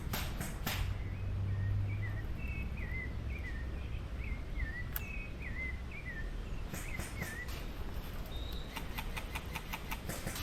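A bird calling over and over with short, quick chirps through the middle, over outdoor ambience. Crunching, crackling steps through dry vegetation come at the start and again in the last few seconds.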